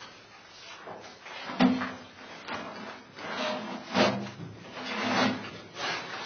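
A series of irregular knocks, scrapes and short creaks from things being handled or moved, with the sharpest knocks about a second and a half in and again about four seconds in.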